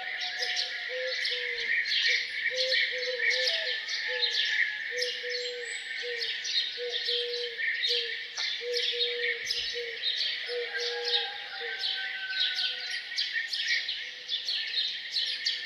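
A chorus of small songbirds chirping rapidly and continuously. Under it runs a string of short low notes, repeated one after another.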